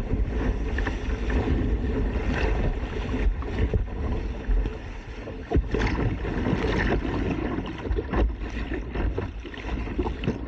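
Choppy sea water rushing and splashing against a sea kayak's hull as it is paddled through broken white water, with the splashes of paddle blades dipping in. A low rumble of wind buffeting the microphone runs underneath.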